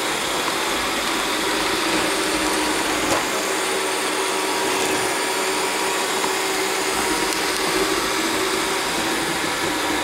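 iRobot Roomba 675 robot vacuum running on carpet, a steady whir of its suction fan and brushes with a constant hum as it sweeps up spilled sand.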